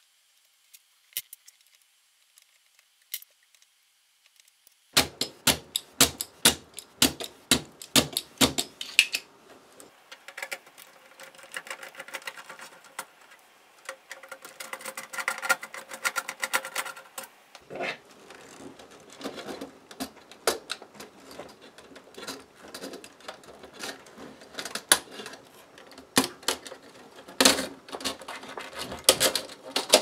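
After a few nearly quiet seconds, a long run of small sharp clicks, ticks and rattles: a screwdriver working screws on a plastic twist-type speaker-terminal strip, with the plastic parts knocking and being handled.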